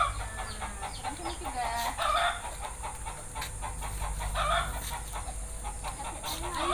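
Chickens clucking with a run of short calls, and louder calls now and then.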